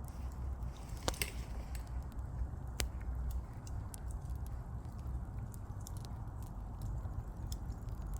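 Burning wood fire crackling, with irregular sharp pops and snaps, a cluster of louder ones about a second in and another near three seconds, over a steady low rumble.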